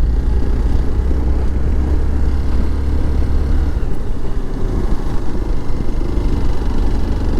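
Hero Xpulse motorcycle's single-cylinder engine running as it is ridden over a rough off-road track. The deep low rumble lightens about four seconds in.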